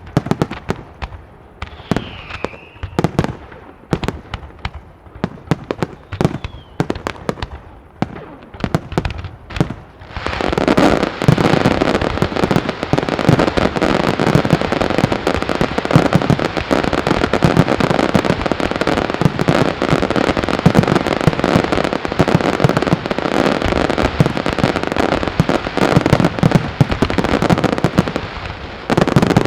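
Fireworks display: separate sharp bangs of bursting shells, then about ten seconds in a dense, rapid barrage of bangs and crackling that keeps up almost without a break.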